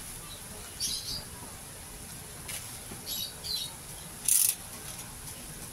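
A few short, high chirps of small birds, with a brief crinkle of plastic parcel wrap being handled about four seconds in, the loudest sound.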